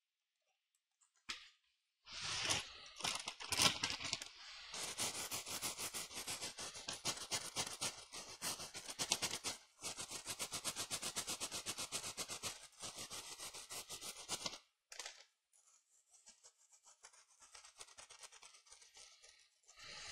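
Rapid scraping strokes on a laptop motherboard, several a second, as glue and black paste residue are worked off the CPU area. The strokes start about two seconds in, stop briefly near 14.5 seconds, and go on more faintly to the end.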